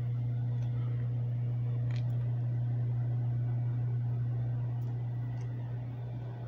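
A steady low hum, even throughout, with a few faint clicks about two seconds and five seconds in.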